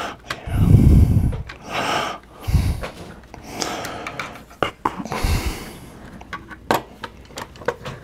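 Heavy breathing close to the microphone, with several breath puffs blowing onto it. A few light sharp clicks come from the CPU heatsink-fan being handled and set onto the motherboard.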